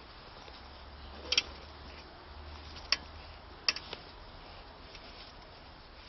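A few sharp clicks at uneven intervals from a slowly turning wheel, the crunch that comes as it turns: the owner suspects a failing wheel bearing.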